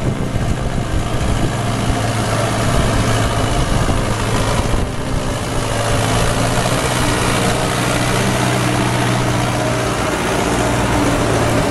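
Tractor engine running steadily under load as the tractor drives through deep mud and standing water, with mud and water churned and splashed by the tyres.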